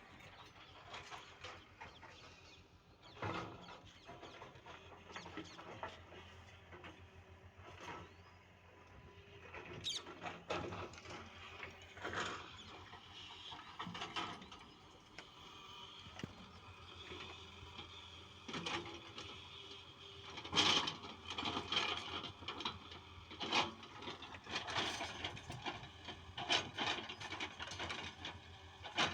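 JCB NXT 205 excavator working: its diesel engine runs steadily under repeated squeaks, clanks and knocks from the digging arm and bucket. The clanks come more often in the second half.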